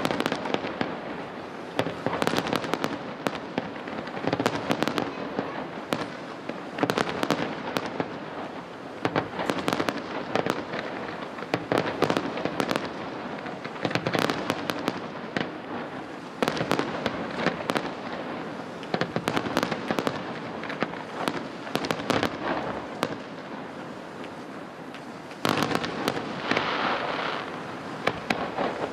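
Fireworks display: aerial shells bursting one after another, a rapid, irregular run of sharp bangs with crackling between them.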